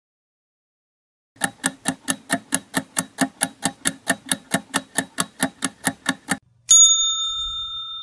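Quiz countdown-timer sound effect: a clock ticking quickly, about four to five ticks a second for some five seconds, then a single bell ding that rings on and fades, signalling that time is up.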